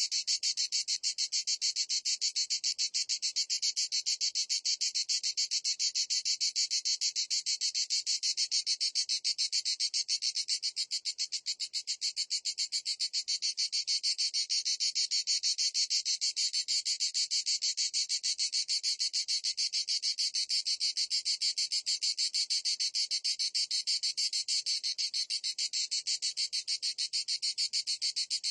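Cicada singing: a steady, high-pitched buzz made of very rapid, even pulses.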